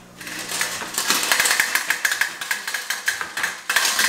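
Cooked blue crabs being dumped out of a tipped metal can cooker pot onto a cardboard-covered table: a rapid, continuous rattle and clatter of crab shells against the pot and the cardboard, dying away near the end.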